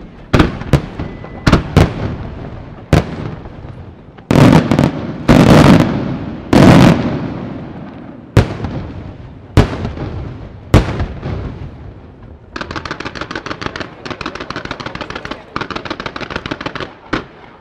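Aerial firework shells bursting in a display, sharp booms one after another, the heaviest cluster coming about four to seven seconds in. About twelve seconds in, a rapid string of many small pops takes over for about five seconds.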